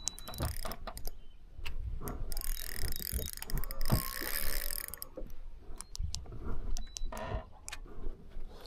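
Spinning reel being cranked in uneven spurts, its drag clicking, while a hooked northern pike pulls against the bent rod. A louder hiss runs for a couple of seconds near the middle.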